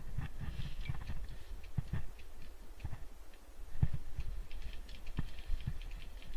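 Scattered light ticks and clicks at irregular intervals, with a few soft low thumps.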